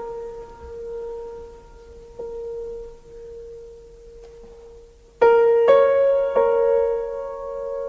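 Slow solo piano music: a held note dying away, a soft note struck about two seconds in, then a louder chord about five seconds in followed by two more notes that ring on.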